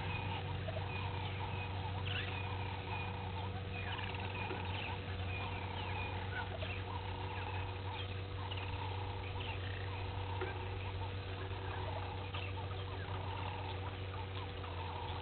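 Morning birdsong: many short chirps rising and falling, with a lower call repeated about once a second, over a steady low hum.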